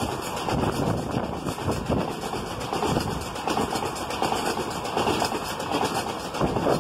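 Indian Railways passenger train running past, its wheels clattering rapidly over the rail joints in a continuous, uneven din.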